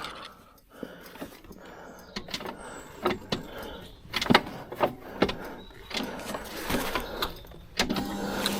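Motorcycle standing with its engine off: scattered clicks and knocks, then a steady hum comes on near the end, before the engine is restarted.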